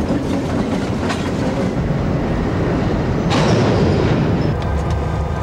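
Freight cars rolling past on the rails, a steady heavy clatter that grows louder and brighter for about a second, a little over three seconds in.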